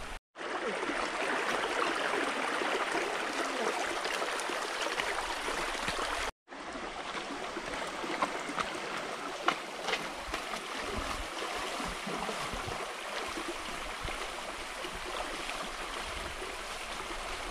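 Shallow forest stream running steadily over rocks, a continuous rushing trickle, cut off for an instant twice, with a few faint knocks around the middle.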